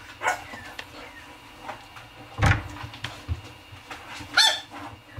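A puppy giving short, high whimpering cries, once near the start and once, louder, near the end. A dull thump comes about halfway through.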